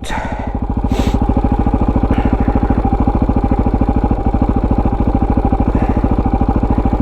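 KTM 640 Adventure R's single-cylinder engine running steadily with an even, fast pulsing beat.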